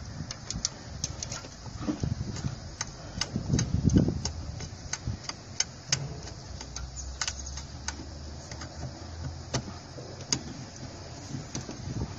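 Metal clicks and taps of a hand valve spring compressor being repositioned and clamped onto an exhaust valve spring on a Nissan VG33E V6 cylinder head. The clicks come irregularly throughout, with a louder knock about four seconds in, over a low rumble in the background.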